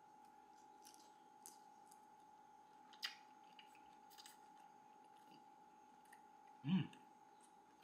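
A person quietly chewing a bite of shrimp pulled off a skewer, with a few small clicks and mouth noises over a steady faint hum. A short vocal sound about two-thirds of the way through.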